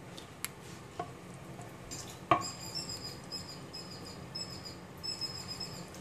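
A serving spoon clacking and scraping against the pan and bowl as curry is ladled out, with a few sharp knocks, the loudest about two seconds in. Faint high repeated squeaking runs through the second half.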